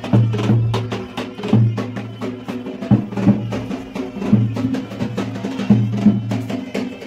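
Music with a strong drum beat, sharp strikes over held low bass notes.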